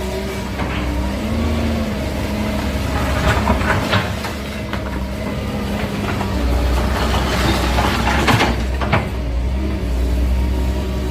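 Excavator's diesel engine running steadily, with scattered knocks and clatter a few seconds in and again near the end.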